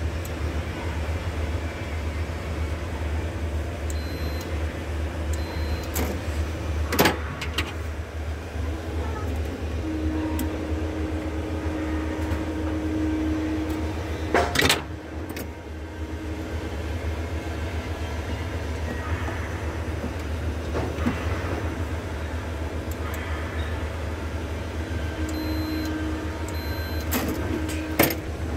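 Steady low hum, typical of an energized power transformer, with a few sharp clicks or knocks: one about 7 seconds in, a louder one about halfway, and another near the end.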